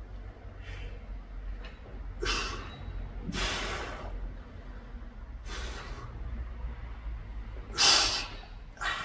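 A man's forceful breathing through the mouth during a set of dumbbell lateral raises: about five sharp puffs of breath a second or two apart, the loudest near the end.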